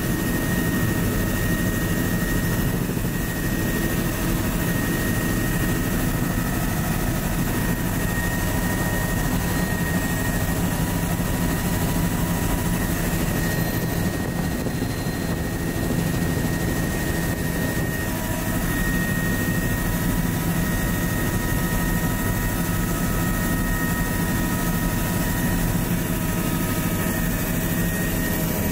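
Helicopter running steadily, heard from inside the cabin with the doors off: a dense, even rotor and engine noise with a steady high whine over it.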